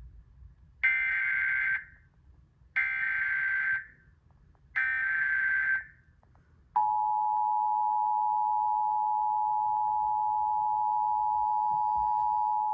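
Emergency Alert System tones for a severe thunderstorm warning. Three one-second bursts of screeching SAME digital header data carry the alert code, and about seven seconds in the steady two-tone EAS attention signal starts and holds.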